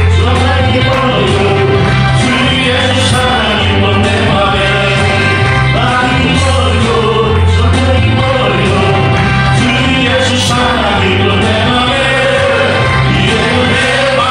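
Vocal ensemble singing a gospel song over instrumental accompaniment with a steady, blocky bass line.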